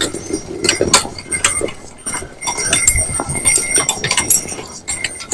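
Two harnessed horses walking on a snowy track, hooves thudding irregularly while the harness metal jingles and clinks with their stride.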